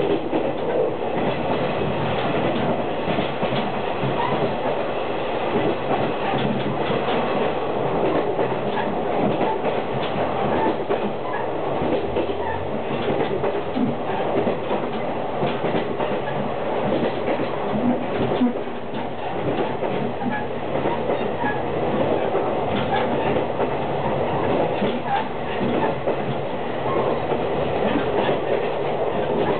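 KiHa 48 diesel railcar running along the line, heard from inside a passenger car: a steady rumble of the diesel engine and wheels on the rails, with many short clicks of the wheels passing over rail joints.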